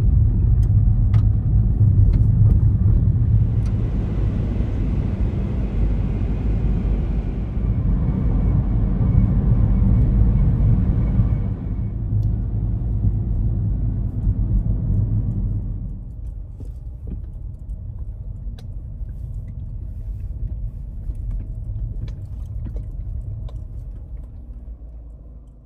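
Car driving along a road, a steady rumble of tyre and road noise that gets quieter about two-thirds of the way through.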